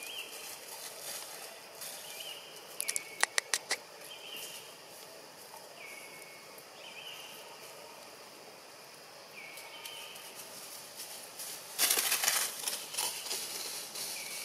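Dry leaves crackling and rustling on the forest floor: a few sharp cracks a few seconds in and a louder stretch of rustling near the end. Short high calls, each dropping in pitch, recur every second or two.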